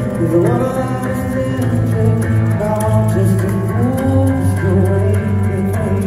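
Live band performing a Thai pop-rock song: electric guitar and bass under a singing voice with sliding, held notes. The mix is loud and steady.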